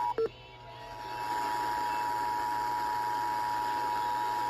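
Emergency Alert System two-tone attention signal: the steady 853 Hz and 960 Hz tones sounding together, with radio hiss underneath. The tones drop out for a moment just after the start, then resume and hold.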